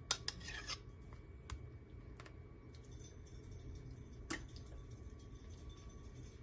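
A spoon clinking and scraping against the enchilada sauce container. There is a quick cluster of clinks in the first second, then a few single ones, and the loudest comes about four seconds in.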